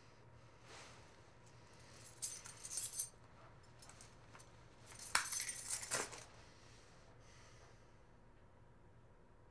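Metallic clinking and jingling of small metal objects handled by hand, in two short bursts: one about two seconds in and a louder one about five seconds in.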